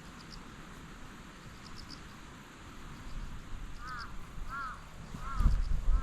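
An animal calling four times in a row: short, arched calls about two-thirds of a second apart, over steady outdoor background noise, with a low thump or rumble near the end.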